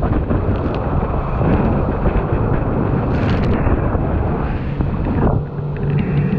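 Motorboat running fast on open sea: wind buffeting the microphone and water rushing and spraying past the hull over the steady drone of its twin outboard engines. There is a brief hiss of spray about three seconds in, and the engine hum comes through more clearly near the end.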